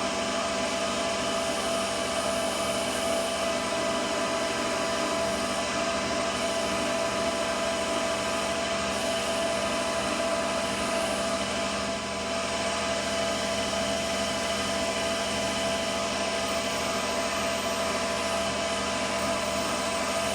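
Metal lathe running steadily with a constant whine, as a tool cuts a thread relief groove into a 4140 steel fitting.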